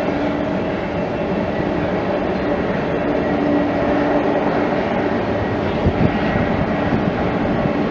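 A Boeing 747's four jet engines running at taxi power: a loud, even rush of engine noise with a steady hum and whine held over it. A couple of low bumps come about six seconds in.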